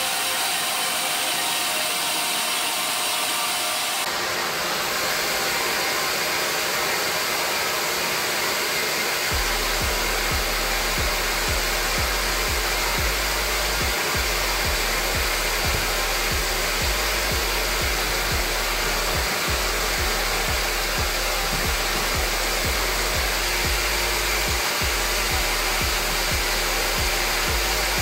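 Wet/dry shop vacuum running steadily, its hose and wide nozzle sucking dust and debris off the fabric of a bucket seat and its foam pads. A low regular beat runs underneath from about a third of the way in.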